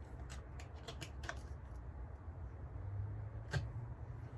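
Light clicks and taps of plastic and metal chainsaw parts being handled and fitted together, several in the first second or so and one sharper click past three seconds, over a low steady hum.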